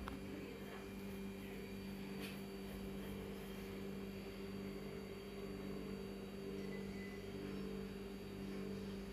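A steady low hum, with faint soft knocks and squelches as a stone pestle pounds and mashes wet chutney in a stone mortar.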